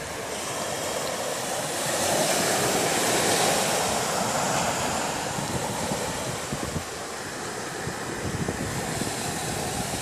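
Small waves breaking and washing up a sandy beach, with a louder surge of surf a couple of seconds in. Wind buffets the microphone.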